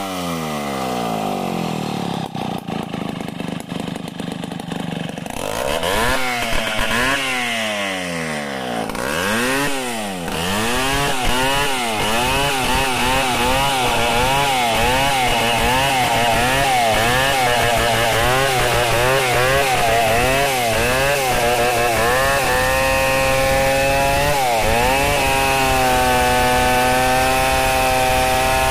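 A large two-stroke chainsaw revving up and down for the first several seconds, then held at high revs as it cuts into a log, its note wavering slightly under load and settling steady for the last few seconds.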